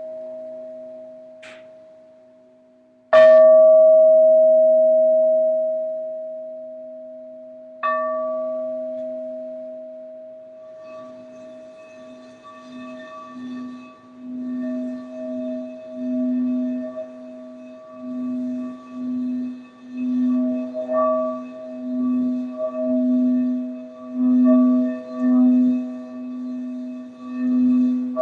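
Frosted crystal singing bowl, struck twice with a mallet, each strike ringing out and slowly dying away. Then the mallet is run around the rim and the bowl sings a steady low tone that swells and fades about once a second, growing louder.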